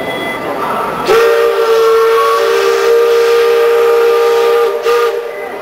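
Steam whistle of the Liberty Belle sternwheel riverboat blowing one long blast of about three and a half seconds, two close low notes sounding together, then a brief short toot near the end.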